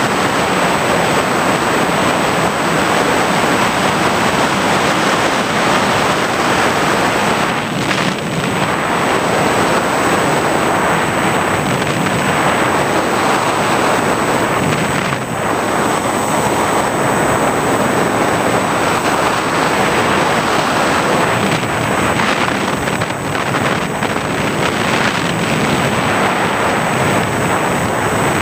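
Steady rush of wind and motor noise picked up by the onboard camera of an FPV model aircraft in flight, with a thin high whine beneath it. The rush dips briefly twice.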